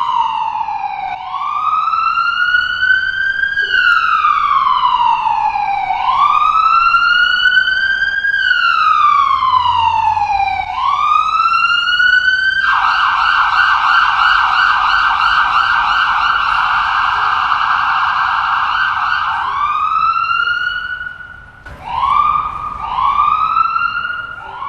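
Ambulance siren in Brazil, an electronic wail rising and falling in pitch about once every two and a half seconds. About halfway through it switches to a rapid warble for roughly seven seconds, then goes back to the slow rise and fall, briefly dropping away shortly before the end.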